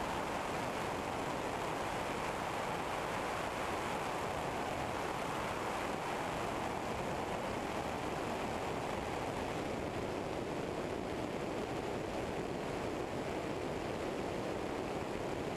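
Steady rush of airflow over a wing-mounted camera on a Eurostar EV97 ultralight aircraft in flight, an even wind noise with no distinct engine tone standing out.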